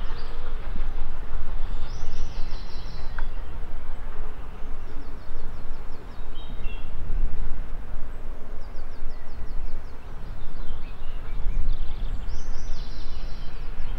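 A songbird singing short trilled phrases over a continuous low rumble; the clearest phrases come about two seconds in and near the end.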